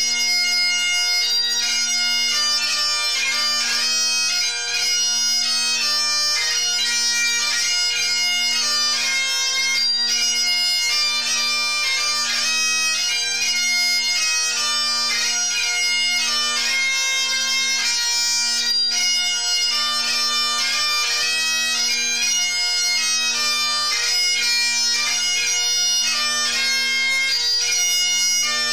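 Scottish Great Highland bagpipes playing a tune: the chanter melody over the steady hum of the drones.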